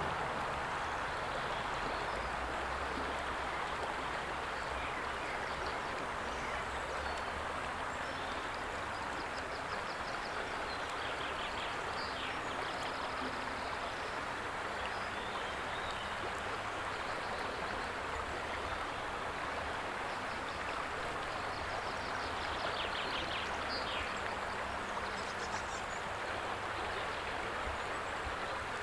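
Steady rushing of a flowing river, an even wash of water noise without letup.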